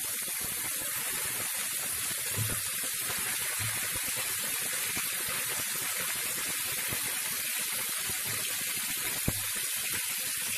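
Raw chicken pieces sizzling in hot oil in a nonstick frying pan, a steady even hiss just after they go into the oil, with one sharp pop about nine seconds in.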